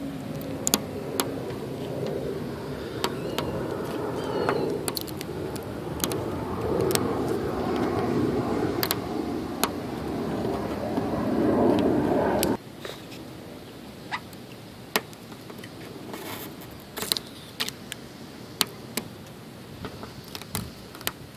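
Plasti Dip rubber coating being picked and peeled off a car emblem by hand, heard as scattered small clicks and ticks. Under it a steady low rumbling noise builds for about twelve seconds, then cuts off abruptly, leaving only the clicks.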